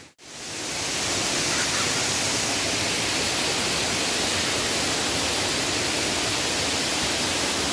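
Waterfall rushing steadily, an even wash of falling water. The sound drops out for a moment at the very start, then fades straight back in.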